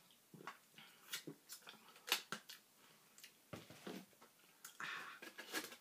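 Faint wet mouth sounds of a person drinking and swallowing, with scattered sharp clicks from the mouth and lips at irregular intervals.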